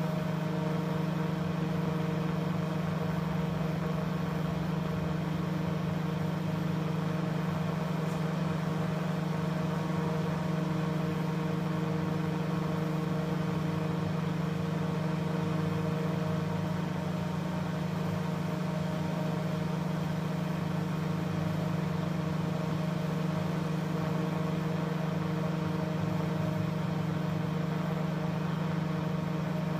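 Steady loud hum of a 10,000-volt fractal burning (Lichtenberg) machine's high-voltage transformer while the current arcs across walnut, sizzling as it burns branching paths into the wood.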